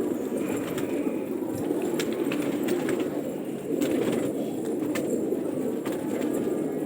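Many gola pigeons cooing at once, their coos overlapping into one steady, continuous sound.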